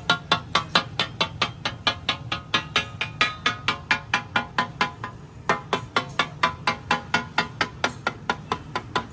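Steel spatulas striking a flat iron tawa in a fast, clanging rhythm of about four to five ringing strikes a second, as the daal fry is chopped and stirred on the griddle; the strikes pause briefly a little past halfway.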